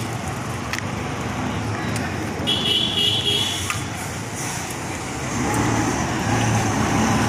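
Street noise with a motor vehicle's engine running, growing louder in the second half as the vehicle draws near. About two and a half seconds in, a high shrill tone lasts about a second.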